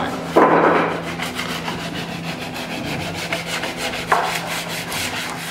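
Hand sanding of bare wooden bench slats with a sanding block: quick, rhythmic back-and-forth scratchy strokes. One louder, longer scrape comes about half a second in, and a sharp scrape just after four seconds.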